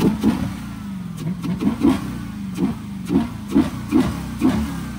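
Dodge Charger's Hemi V8, fitted with a JLT open-element cold air intake, blipped about nine times from idle in quick short revs, with the intake audibly pulling in air on each rev.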